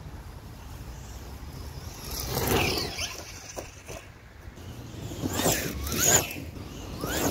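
Arrma Typhon RC buggy driving over grass in bursts, its brushless electric motor whining up and down in pitch as it accelerates and slows, loudest about two and a half and six seconds in. It is being driven gently to run in a freshly rebuilt differential with a metal gear on a plastic one.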